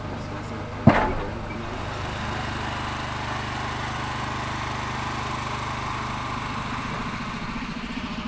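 Boat engine running steadily in a low, even hum, with one sharp knock about a second in.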